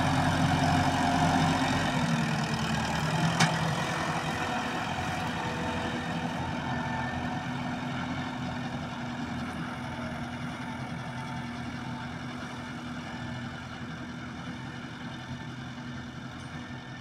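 Landini tractor's diesel engine running steadily and fading as the tractor drives away. A single sharp click comes about three and a half seconds in.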